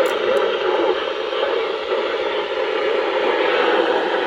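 Weather radio receiver putting out a steady hiss of static as the broadcast signal breaks up under poor reception, with two faint clicks in the first half second.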